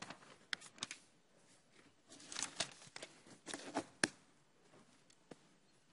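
Faint room noise: light rustling and a few scattered clicks, with a sharper click about four seconds in.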